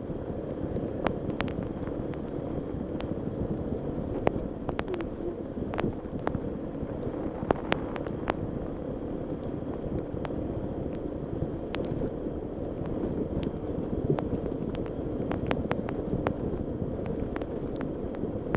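Honda ADV150 scooter's engine running steadily while riding a rough dirt trail, with frequent sharp knocks and clicks over it.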